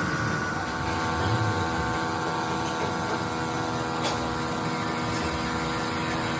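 A machine running steadily, a constant hum of several tones over a dense mechanical noise, with a brief click about four seconds in.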